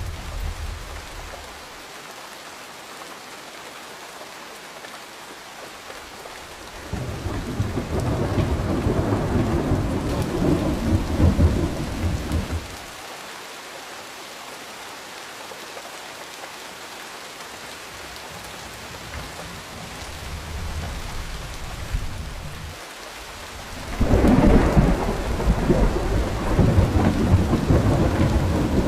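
Steady rain falling, with thunder rolling through it: a long low rumble about a quarter of the way in that lasts some five seconds, a fainter swell later, and another heavy rumble near the end.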